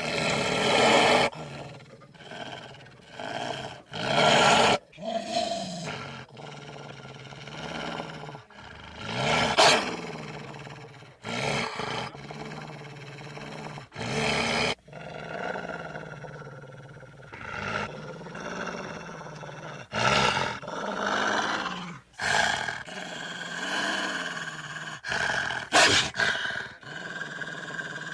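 Dire wolf creature sound effects: a string of separate growls and roar-like calls, each a second or two long with short gaps between them, some bending in pitch.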